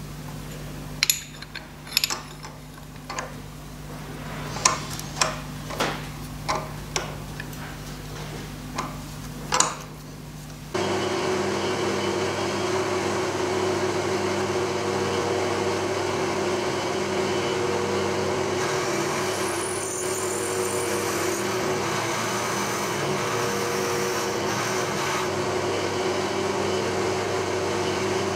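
About ten sharp metallic knocks and clinks as the aluminium block is set in the milling vise. Then, about eleven seconds in, a milling machine cuts in abruptly and runs steadily as an end mill machines the top of the aluminium block.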